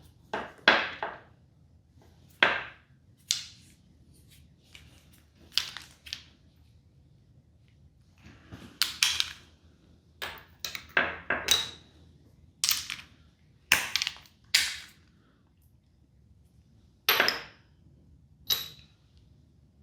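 Metal hand tools clinking and clanking: sockets and a ratchet being picked up and fitted toward the spark plugs of a four-stroke outboard. The result is about fifteen short, sharp knocks at uneven intervals, some with a brief metallic ring.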